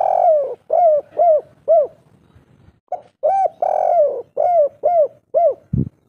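Spotted dove cooing: two phrases, each a drawn-out coo followed by three short arched coos, the three-note ending that Indonesian keepers call 'kuk 3'. A brief low thump near the end.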